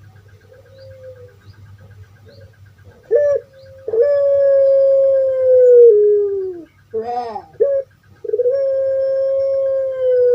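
Puter pelung, a long-cooing domestic dove (Streptopelia risoria), singing: after soft short notes, a short coo, then two long drawn-out coos of two to three seconds each, each dropping in pitch at the end, with a rough wavering note between them.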